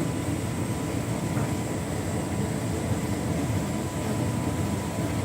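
Hotpoint Ultima S-line tumble dryer running on its 'Heat and enjoy' warming setting, drum turning and fan blowing warm air: a steady low rumble with faint steady high tones above it.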